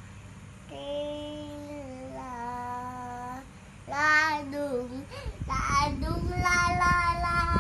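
A young child singing a children's song in long, drawn-out held notes, phrase after phrase with short breaths between. Low bumping noise sits under the singing in the second half.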